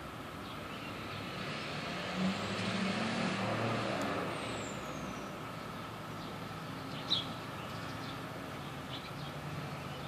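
Distant chorus of Brood II periodical cicadas, a steady drone in the background. A road vehicle passes, swelling and fading between about two and four seconds in. A brief sharp high sound comes about seven seconds in.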